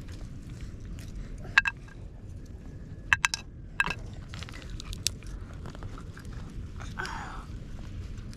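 Walnut shells being broken apart by hand to get at the kernels: scattered sharp cracks and crunches, with three in quick succession about three seconds in.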